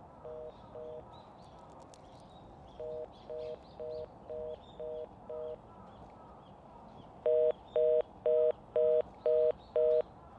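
Telephone busy tone: a two-note beep repeating about twice a second, in three runs of about six beeps each, the last run the loudest.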